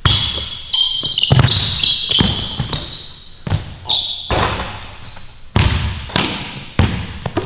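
A basketball bouncing on a court floor, struck about every half second to second in a dribbling rhythm, with sneakers squeaking sharply between the bounces.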